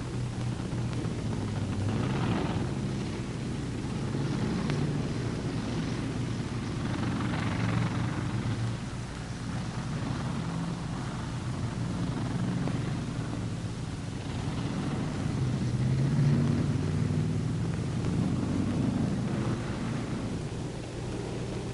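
Engines of a column of tanks running on the move: a steady low drone whose pitch rises and falls, swelling a few times with a rushing noise.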